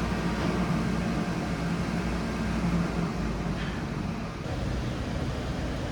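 Steady mechanical hum of a high-frequency wood-bending press. A low drone eases off about three seconds in, and the level dips briefly a little after four seconds.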